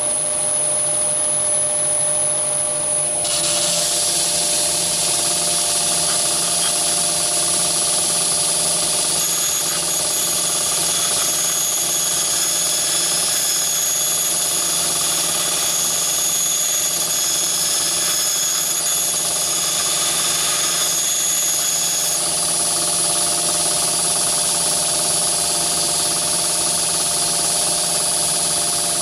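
Myford ML7 lathe running steadily, turning a diamond lapping cup wheel, with a carbide-tipped lathe tool held against the wheel face. Diamond grit on carbide gives a steady grinding hiss over the lathe's steady whine, and the hiss starts about three seconds in.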